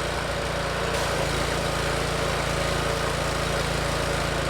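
An engine running at a steady idle, an even hum with no change in speed.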